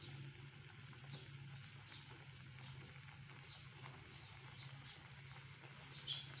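Pot of sinigang broth with salmon boiling: faint bubbling and crackling over a low steady hum.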